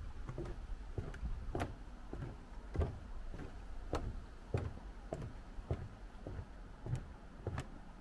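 Footsteps on the wooden planks of a boardwalk, a steady walking pace of sharp hollow knocks, a little under two steps a second.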